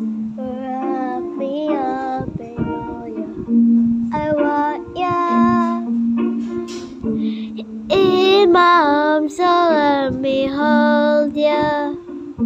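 Music: a singing voice carries a melody over plucked guitar or ukulele accompaniment, louder from about eight seconds in.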